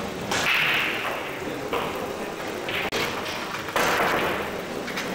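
Pool shot: the cue striking the cue ball, then billiard balls knocking together. A few sharp knocks, the loudest near the end.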